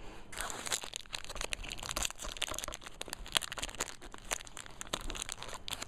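Foil Pokémon booster pack wrapper crinkling as it is handled and pulled at to tear it open, a dense run of irregular crackles.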